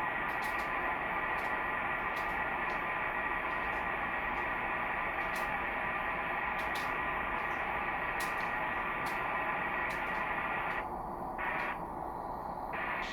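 HTOOL SDR-V5 software-defined radio receiver's speaker hissing with band static on 11-meter CB sideband, with a few faint steady tones and faint regular ticks in it but no clear voice: a quiet band under poor conditions. The upper part of the hiss cuts out twice near the end.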